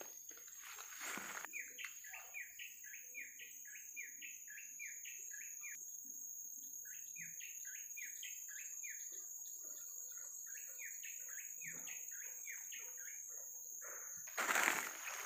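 A forest bird calls a long series of quick, falling notes, about four a second, in three runs with short breaks, over a steady high insect drone. Footsteps rustle through leaf litter near the start, and louder near the end.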